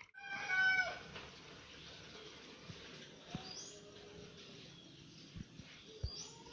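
Birds calling: one loud pitched call in the first second, then a couple of short, high, rising chirps later on.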